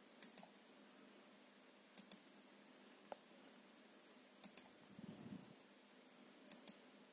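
Faint clicks from a computer mouse, in quick pairs about every two seconds, with one lone tick and a short low rustle near the middle.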